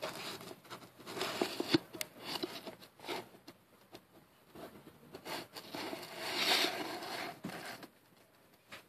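Rustling, crinkling handling noise from a hand-held plastic cup, with scattered small clicks, louder about a second in and again past the middle.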